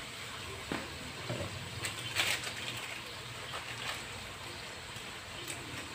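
Mackerel tuna in a spiced tomato-chili sauce simmering in a wok after a little water was added: a faint steady sizzle with a few small pops and ticks.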